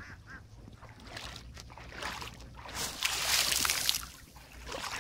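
Shallow field water splashed and sloshed by kicking, loudest for about a second around three seconds in: water kicked to flush climbing perch in a flooded rice field.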